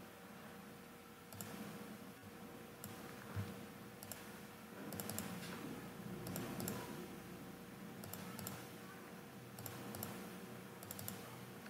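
Computer mouse clicking: a single click or a quick pair of clicks every second or so. The clicks are faint over a low steady hum.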